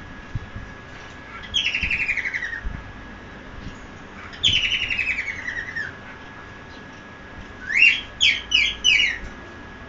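Cockatiel calling: two chattering calls, each a quick run of notes falling in pitch over about a second, then four short chirps in quick succession near the end. The owner suspects it is a mating call of some sort, given while the bird bows.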